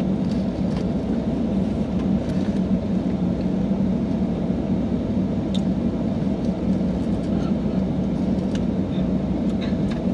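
Steady road and engine noise inside a moving car's cabin, a low, even rumble, with a few faint clicks.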